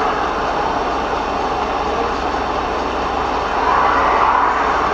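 Steady road and engine noise of a car moving slowly in traffic, heard inside the cabin as an even hiss that swells a little about four seconds in.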